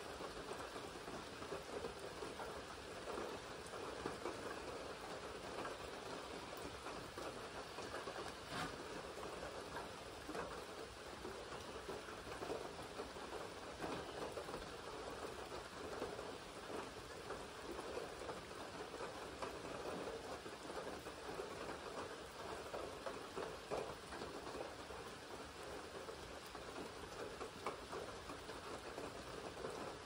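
Steady rain: a dense, even patter of many small drops falling without a break.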